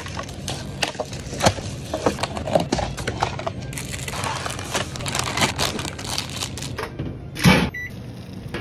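Instant ramen cup's paper lid being pried open with a wooden chopstick and the packaging handled, crinkling and scraping with many small clicks. A heavier thump near the end.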